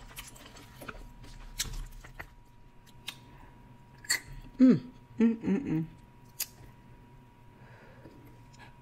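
Close-miked eating sounds: scattered sharp clicks and cracks as cooked Dungeness crab shell is pulled apart and dipped in butter sauce, with chewing. About halfway through there are two short hummed vocal sounds from a full mouth, the first falling in pitch.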